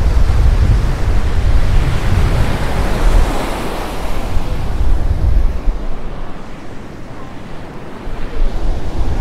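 Surf breaking and washing up the beach, with wind buffeting the microphone in a heavy low rumble that eases after about five seconds and picks up again near the end.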